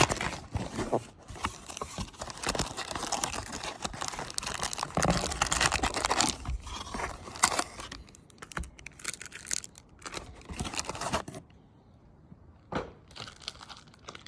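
Baseball card packs and wrapping crinkling and tearing as they are ripped open by hand, a dense crackle for about eleven seconds; then it goes much quieter, with one sharp click near the end.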